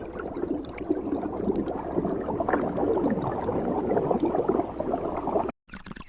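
Water bubbling continuously, a dense run of gurgling bubbles with small pops. It cuts out for a moment near the end and comes back quieter.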